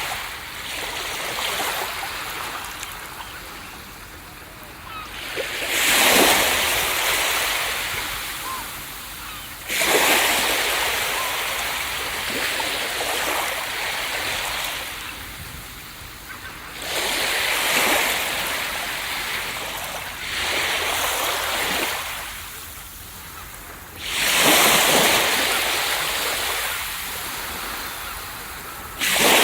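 Ocean waves breaking on a beach: about six waves crash in at uneven intervals of four to seven seconds. Each crash fades into a hissing wash of surf before the next.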